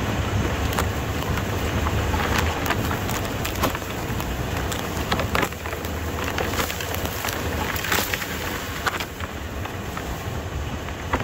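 2003 Toyota 4Runner V8 driving through a field of tall grass and weeds: dry stalks crackle, snap and swish against the body over a steady low engine rumble, which eases about halfway through.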